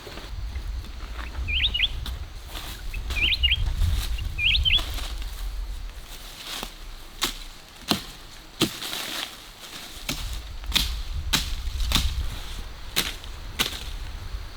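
A small bird chirping in three quick clusters, then a run of sharp knocks, about one every half second to second, over a low rumble.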